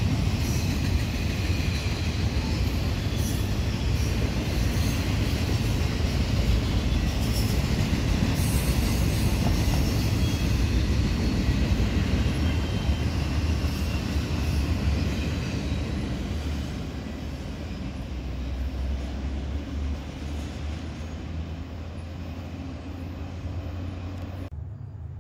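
Double-stack intermodal freight train rolling past: a steady rumble and rattle of container cars on the rails, with brief high wheel squeals here and there. It dies down over the last third as the cars thin out and pass.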